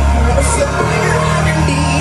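Live band playing loudly, with heavy sustained bass notes that change just under a second in and a singer's voice over the music.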